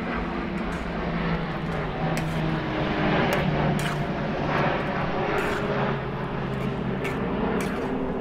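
A metal spatula scraping and tapping in a cast iron wok of simmering curry, with a few sharp clicks scattered through. Under it runs a steady engine drone whose pitch shifts up and down.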